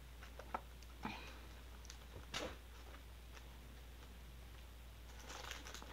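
Quiet room with a few faint clicks and light knocks in the first few seconds, then soft rustling near the end.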